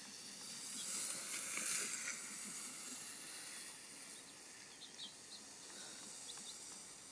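Faint steady hiss of outdoor ambience, a little louder in the first couple of seconds, with a few faint short high chirps in the second half.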